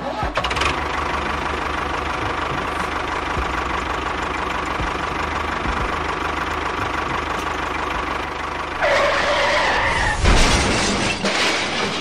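Tractor engine running steadily with a low, even pulse. A brief higher-pitched tone joins about nine seconds in, and the sound turns louder and rougher about ten seconds in.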